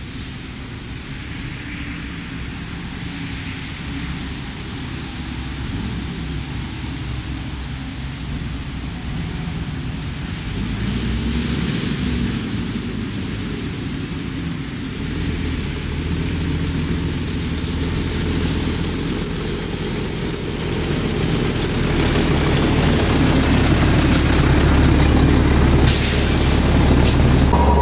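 Renault Magnum 440 truck's diesel engine running, heard from inside the cab, growing louder as the truck pulls along. A high hiss comes and goes through the middle stretch.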